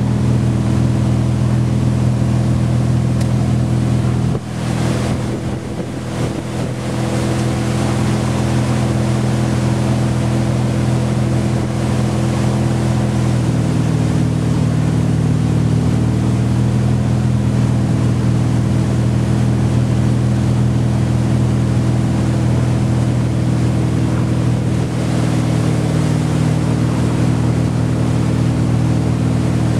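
Tow boat's engine running steadily while pulling a wakeboarder, with water rushing past the hull. The engine note dips briefly about four to five seconds in, then settles a little lower about thirteen seconds in.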